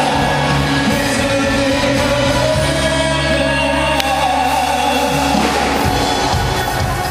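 Live pop band playing with singing over drums, bass and keyboard. A low note is held through the middle, dropping away about six seconds in.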